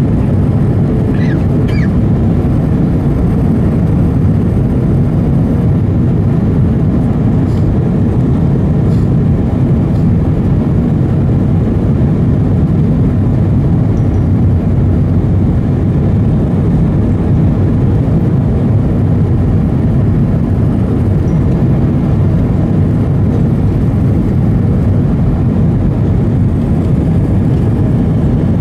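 Steady roar of engine and airflow noise heard inside the cabin of an Airbus A320 airliner in flight.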